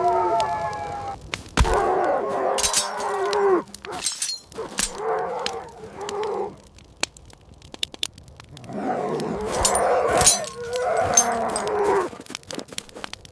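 Drawn-out animal calls in three stretches of about two seconds each, with sharp cracks and snaps scattered among them.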